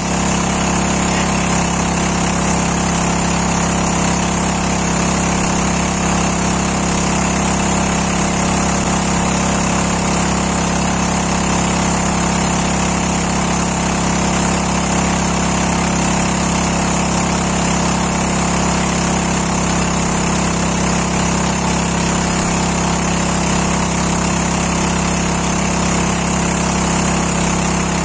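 An engine running steadily at an even speed, its hum holding the same pitch throughout.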